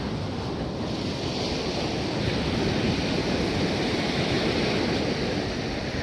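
Sea surf washing up a sandy beach: a steady rushing noise that swells about a second in, with wind on the microphone.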